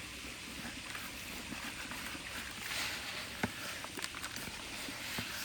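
Hands crumbling sawdust mushroom spawn into a damp mix of compost, garden soil and potting soil, with a steady rustle of crumbling soil and small clicks of grains and wood chips.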